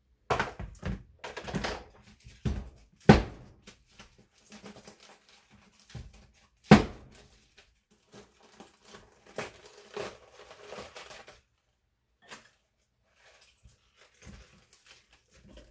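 Plastic salad spinner handled and set down, its lid and basket knocking and clattering in several sharp knocks, then the crisp crackle and tearing of outer leaves being pulled off a head of iceberg lettuce.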